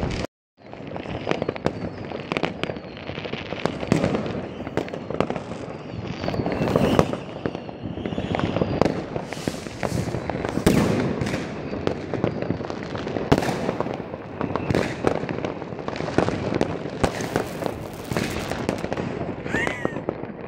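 Many New Year's Eve fireworks going off at once at various distances: a constant crackle of firecrackers with frequent louder rocket bangs. A few rockets whistle, a few seconds in and again near the end.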